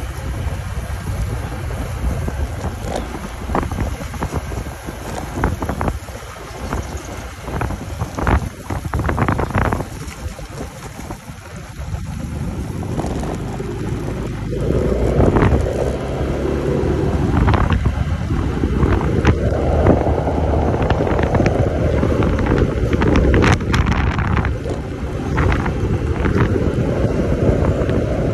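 Wind rushing over the microphone with a Yamaha motor scooter's engine and road noise as it rides at low speed. The noise dips about a third of the way in, then swells as the scooter picks up speed, with a few short knocks.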